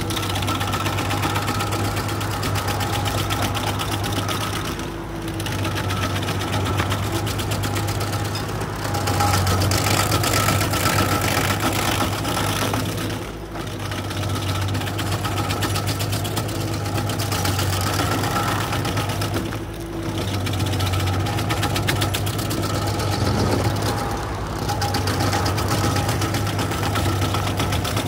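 Carlton stump grinder running hard with its cutter wheel chewing into a tree stump: a steady engine under load with the rattle of the teeth and chips. The level dips briefly every few seconds, then picks up again.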